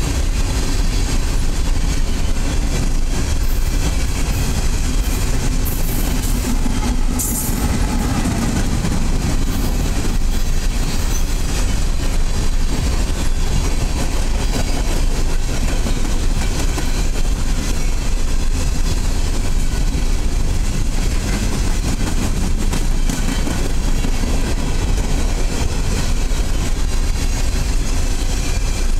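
Freight train's coal hopper cars rolling past at speed: a steady, loud rumble of steel wheels on the rails, with a brief high squeal about seven seconds in.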